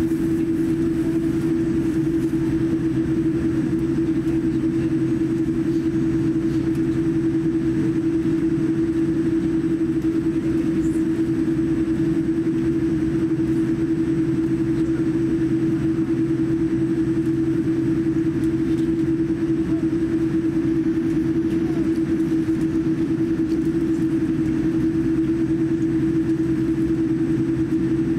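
Boeing 787-9 cabin noise while taxiing: a steady hum and rumble with a constant low drone that does not change in pitch or level.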